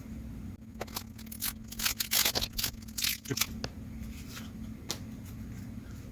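1990 Donruss baseball cards being handled: a quick run of paper rustles and sharp card clicks over about three seconds, then a few single ticks.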